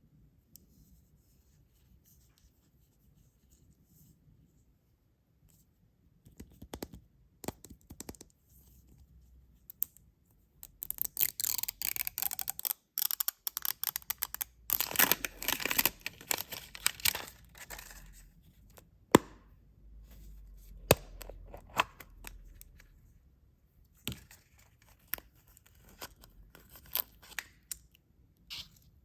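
Packaging being torn open and handled by hand for a toy unboxing. It is nearly quiet for the first few seconds, then comes a long stretch of tearing and crinkling, followed by a few sharp clicks and taps.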